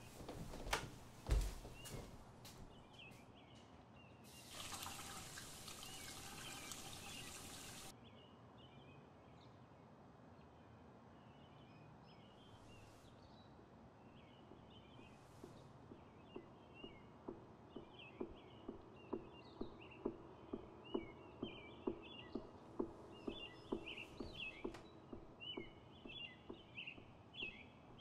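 A few clicks at the refrigerator, then water running from the fridge's dispenser into a glass for about three seconds. Birds chirp throughout. About halfway through, a steady, evenly spaced knocking begins at about one and a half beats a second.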